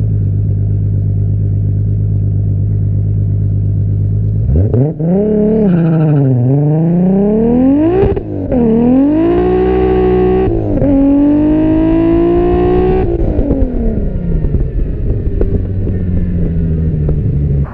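Turbocharged Toyota 2JZ-GTE straight-six in a built Supra, first running as a steady low drone, then pulled hard under acceleration. The revs climb, dip, and climb again several times as it goes through the gears, then fall away as the throttle is lifted about thirteen seconds in.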